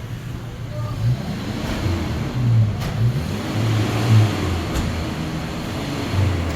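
Motor vehicle engine running steadily, its low pitch wavering up and down as the revs shift.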